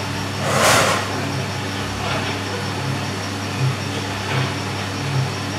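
Drum coffee roaster running mid-roast, its drum motor and fan making a steady hum. A few brief rustling bursts sit on top, the loudest about half a second in, and weaker ones about two and four and a half seconds in.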